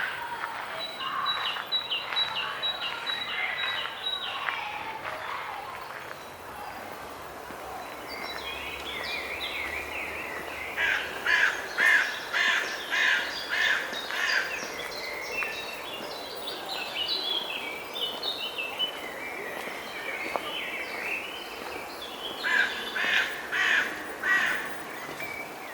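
Birds calling in open parkland: loud runs of quickly repeated calls, crow-like, over a steady outdoor background. One run comes about a third of the way in and another near the end.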